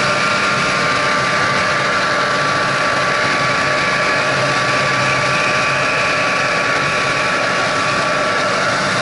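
Snowmobile engine running at a steady speed: a high, even whine over a steady rushing noise.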